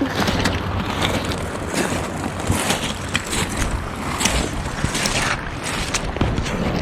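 Swift river current rushing steadily, with scattered short crackles over it.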